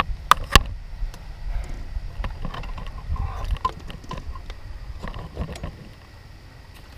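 Wind buffeting the microphone in an uneven low rumble. Three sharp clicks and knocks of handling come in the first second, with a few fainter ones later.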